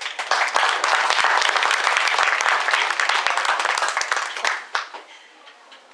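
Audience clapping: a dense patter of applause that starts suddenly, holds for about four seconds, then thins out and dies away.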